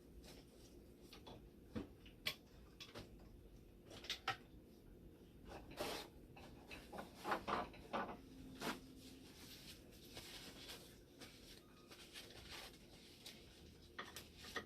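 Scattered faint clicks and knocks of small machine parts being handled, with a cluster of louder knocks about seven to eight seconds in.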